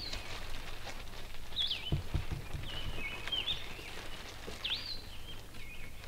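A songbird calling: short high notes that swoop down and back up, repeated several times over a steady low background hum. There are a few soft low thumps about two seconds in.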